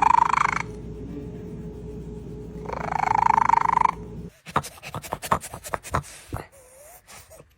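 A cat makes a drawn-out, raspy, duck-like call twice, each about a second long, rising and then held. After about four seconds these give way to a scatter of sharp clicks and taps with one short faint cry.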